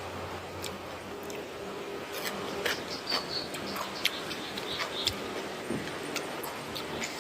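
Eating sounds: scattered small clicks and crunches of food being handled and chewed, over a steady background hiss.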